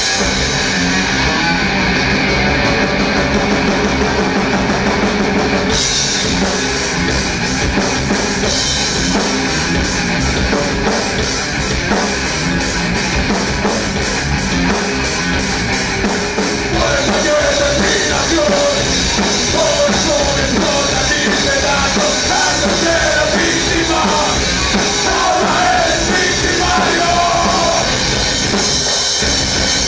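A metal band playing live, with distorted guitars, bass and a drum kit driving a heavy groove. The cymbals brighten about six seconds in, and a wavering melodic line rises above the band from about halfway through.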